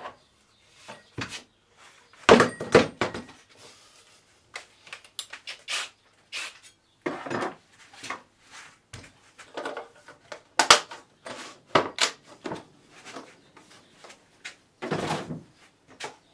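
Scattered knocks, clicks and clatter of tools and a wooden guitar body being handled and set down on a workbench, with no power tool running.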